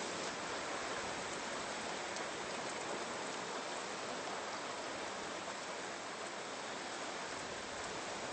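A steady, even rushing noise like rain or running water, with no changes in level.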